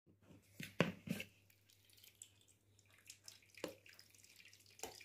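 Churned cream and buttermilk poured from a plastic blender jar into a mesh strainer: faint dripping and splashing, with a few sharp knocks, the loudest about a second in.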